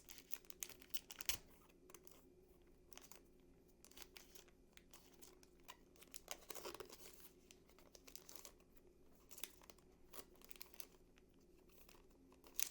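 Faint tearing and crinkling of a trading card pack's wrapper as it is ripped open, in scattered short crackles.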